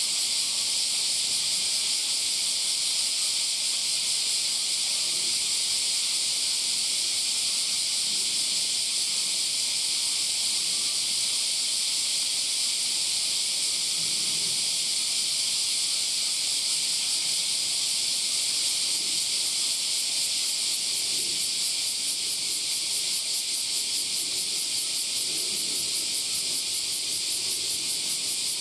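A dense, steady summer cicada chorus, a high hiss that pulses faintly near the end, over quieter crunching of a giant panda chewing bamboo.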